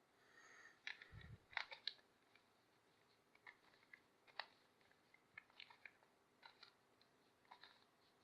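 Faint, irregular plastic clicks and clacks of a Rubik's Cube being handled and its layers turned, with a short dull thump about a second in.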